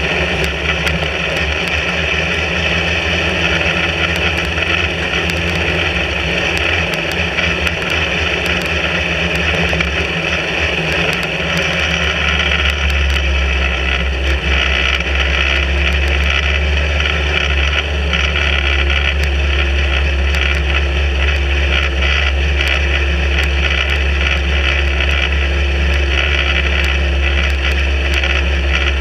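Sbarro Spyder sports-racing car's engine running steadily at low pit-lane speed, heard from the open cockpit. Its low note shifts a little under halfway through, then holds steady again.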